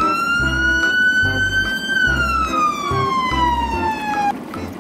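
A single long siren-like whistle tone: it sweeps up quickly at the start, climbs slowly for about two seconds, then falls steadily and cuts off shortly before the end. Underneath runs background music with a steady thumping beat.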